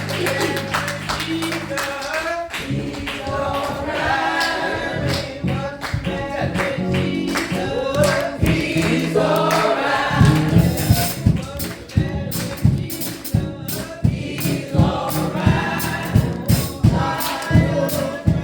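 Gospel choir singing with band accompaniment: a held chord at first, then a steady percussive beat comes in about two seconds in.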